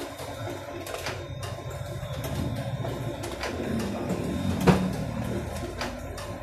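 Canon photocopier running a copy job, a steady mechanical hum with scattered clicks and one sharper knock about four and a half seconds in.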